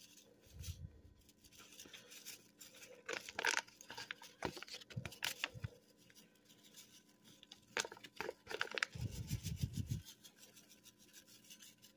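Au jus gravy-mix packet rustling and crinkling as the powder is shaken out of it, with scattered faint taps and scrapes and a couple of dull low bumps.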